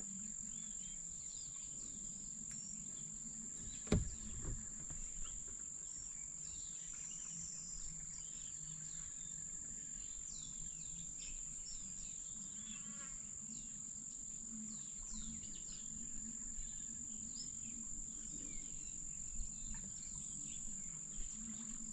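Steady high-pitched drone of insects with scattered short bird chirps, and a single sharp knock about four seconds in.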